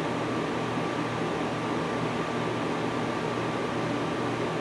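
Steady low hum under an even hiss: room air conditioning running.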